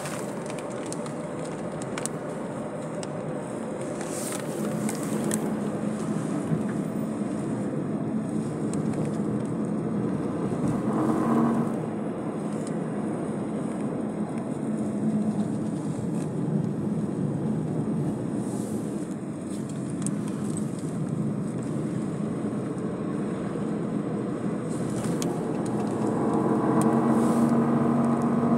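Steady road noise of a moving car, heard while riding in it: tyre, engine and wind noise. It swells a little near the end.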